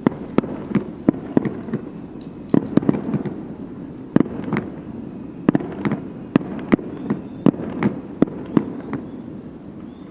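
Fireworks display bursting: a rapid, irregular series of sharp bangs over a rolling low rumble, stopping about nine seconds in.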